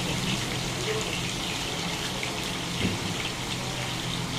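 Hilsa fish frying in hot oil: a steady sizzling hiss over a low, steady hum.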